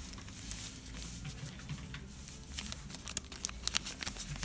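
Paper banknotes and a folded note rustling and crinkling as they are handled, with a quick run of small crackles and clicks in the second half, over a low steady hum.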